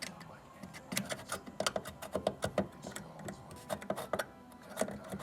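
Irregular clicks and taps of a RAM module being handled and pushed into its memory slot.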